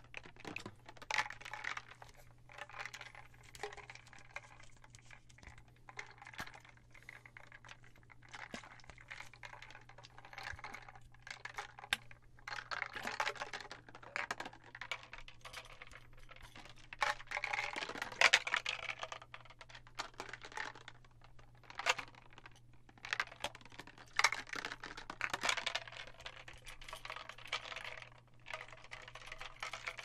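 Dice rolling and clicking against the inside of a water-filled glass container as it is tilted back and forth, with the water sloshing. The clicks come in irregular clusters, loudest a little past halfway.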